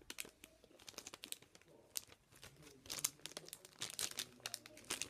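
Chocolate bar wrapper crinkling as it is handled, in short irregular bursts of crackle.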